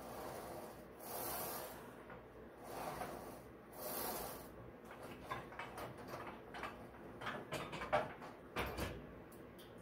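Forced breaths, each a rush of air, about a second and a half apart during one-leg Smith machine leg presses. From about five seconds in they give way to a run of light clicks and knocks from the Smith machine bar and frame, the sharpest near the end.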